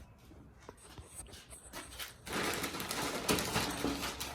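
Faint clicks at first, then about two seconds in a louder rustling, scraping noise with a few knocks: handling noise close to the microphone.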